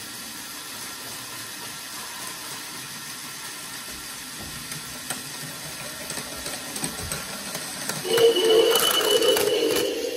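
Battery-powered Plarail Advance toy trains running on plastic track with a steady whir. About eight seconds in it grows louder, with a mid-pitched motor whine, a higher steady tone and clicking.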